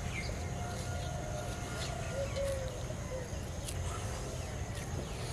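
A dove cooing, a short series of low coos through the middle, over a steady low outdoor rumble with a few faint sharp ticks.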